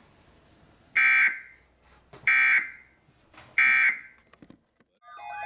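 Three short, identical buzzy data bursts about 1.3 seconds apart: the EAS/SAME end-of-message code on NOAA Weather Radio, marking the close of a severe thunderstorm warning broadcast. Just before the end, a repeating electronic alert tone pattern starts up.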